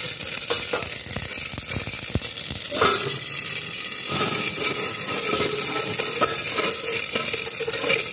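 Flaxseeds dry-roasting in a covered kadhai, crackling and rattling against the pan and its steel lid, with a few sharper clicks. The crackling is the sign that the seeds are roasting through.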